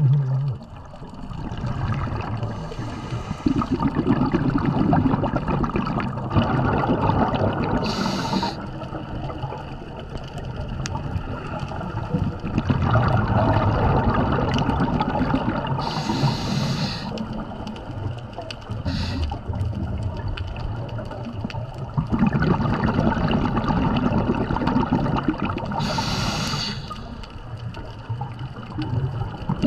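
Scuba diver breathing through a regulator underwater: stretches of bubbling rumble as air is exhaled, broken by short hisses of inhalation about every eight to ten seconds.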